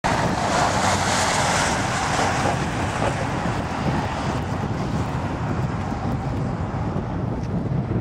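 Wind rumbling on the microphone in a snowstorm, with a broad hiss that is loudest in the first two seconds and then fades away.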